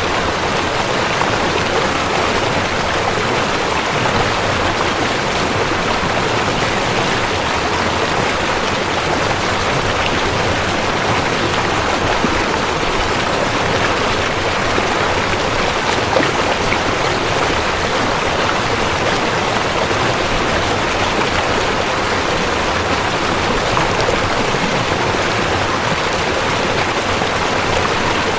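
Rushing river: a steady, loud, even wash of flowing water.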